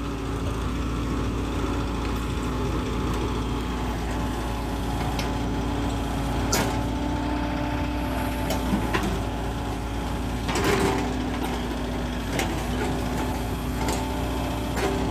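Furukawa mini excavator's diesel engine running steadily under load as it digs, with a handful of short knocks and scrapes from the bucket working the dirt.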